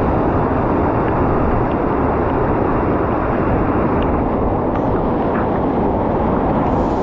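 Waterfall in high flow: a loud, steady rush of falling water.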